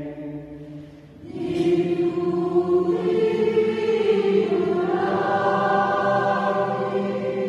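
A choir singing held chords. The singing dips about a second in, then the next phrase enters louder and carries on steadily.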